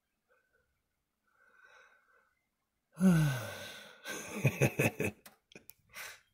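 A loud sighing exhale, its voice falling in pitch, about three seconds in, then a quick run of short breathy huffs and one more short exhale near the end.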